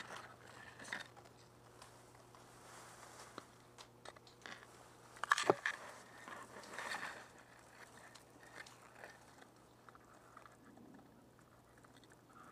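Tall grass and dry brush rustling and crunching close against the body and helmet camera as the player pushes through the vegetation, with scattered small snaps; the loudest is a quick cluster of sharp cracks about five and a half seconds in.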